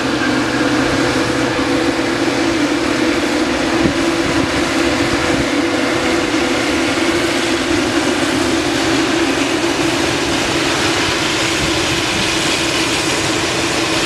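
Boeing 787 Dreamliner's jet engines running as the airliner rolls along the runway after landing, a steady loud hum and rush without rises or falls.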